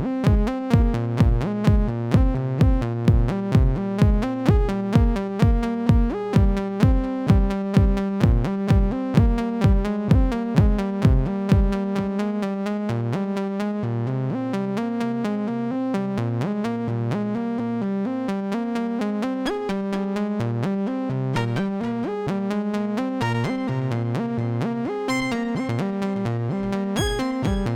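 Electronic music from a Make Noise modular synthesizer patch built around the DPO oscillator: sustained pitched synth tones over a steady kick pulse of about two beats a second. The kick drops out a little under halfway through and returns near the end.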